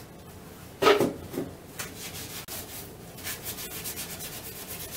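Damp scrub sponge rubbed hard against the porcelain of a toilet bowl with gritty scouring powder, a dry scratchy scrubbing. About a second in there is a single sharp knock, the loudest sound, followed by a few lighter scrapes. From about three seconds in the scrubbing settles into quick, even strokes, several a second.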